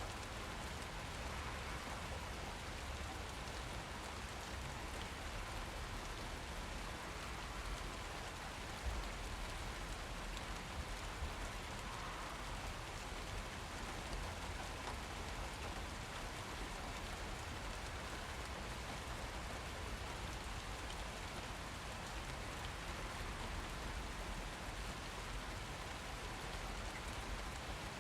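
Steady rain falling and pattering on surfaces, with a low rumble underneath and one slightly louder drop or tap about nine seconds in.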